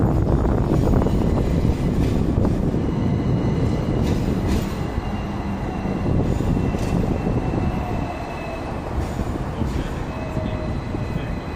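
Hong Kong double-decker tram running along its street track, heard from the upper deck: a steady low rumble with a few sharp clicks.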